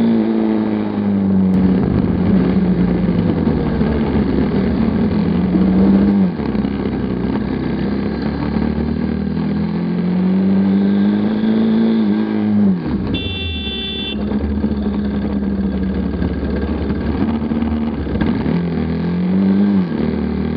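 Motorcycle engine running under way, its pitch climbing slowly through each gear and dropping sharply at the shifts, about every six seconds, over road and wind noise. A short high-pitched tone sounds about two-thirds of the way through.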